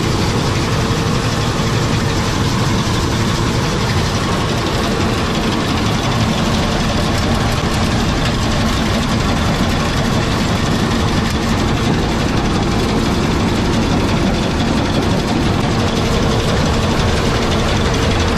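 Seed-cleaning machine (winnowing fan with sieves) running steadily while cleaning lupin seed: a loud, even mechanical noise without a break.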